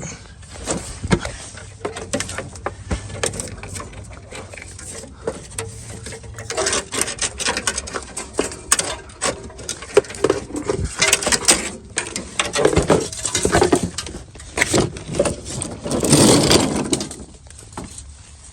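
Old metal brake line being pulled out from under a Ford Mustang II, the tubing scraping and knocking against the car's underside in irregular clicks and rattles, with a longer, louder scrape near the end.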